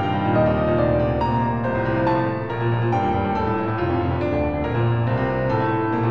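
Background music led by piano, soft and slow, with notes changing about every half second over a low bass.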